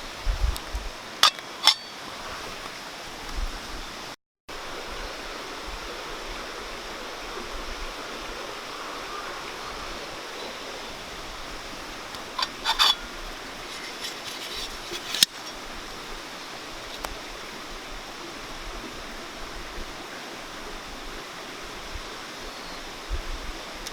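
Mountain stream rushing steadily. A few short, sharp clicks and clinks come about a second in and again in a cluster around the middle.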